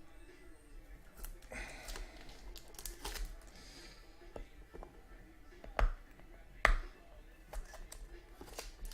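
A sealed trading-card box being handled and opened: scattered sharp clicks and taps of cardboard, with brief rustling and tearing of its wrapper, and two louder snaps a little past the middle.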